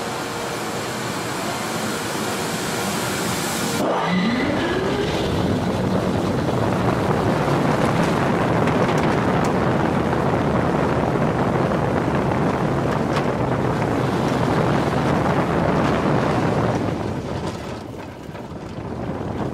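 Launched inverted roller coaster train accelerating on its linear induction motors, heard as a rising whine about four seconds in. Then loud, steady wind rush over the onboard microphone as the train speeds through the course, easing off near the end.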